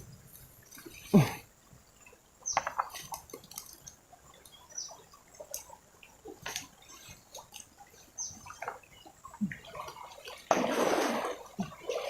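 Shallow river water splashing and sloshing in short irregular bursts as a hooked giant eel thrashes while being landed, with a sharp splash about a second in and a longer rush of splashing near the end.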